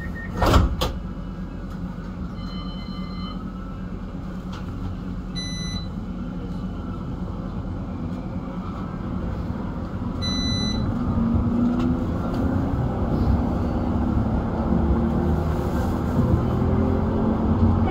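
CAF Urbos tram pulling away from a stop and running along the track, heard from inside. There is a sharp knock about half a second in and a few short electronic beeps. Near the end the motor whine rises as the tram picks up speed.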